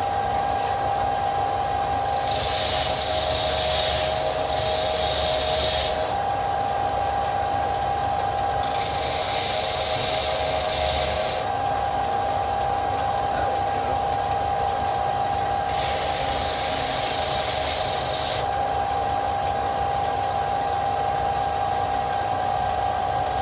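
Power sander running with a steady whine while a thin steel plane blade is pressed against it three times, each for about three seconds, adding a loud grinding hiss as the blade is polished toward a mirror finish. The machine cuts off at the end.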